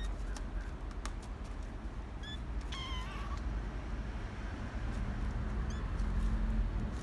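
Kittens mewing: a few short, high-pitched mews about two, three and six seconds in, the middle one lower and longer, over a low steady rumble.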